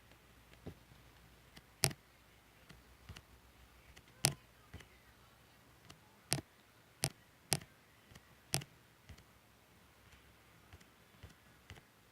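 Slime being pressed and squished by hand, making irregular sharp clicks and pops, about six loud ones among fainter ticks.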